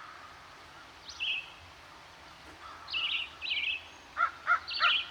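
Birds chirping: short runs of quick high notes about a second in and again from three seconds on, over a steady faint hiss.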